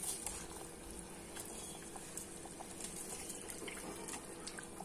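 Rice and stock simmering in an open aluminium pressure cooker: faint steady bubbling with scattered small pops.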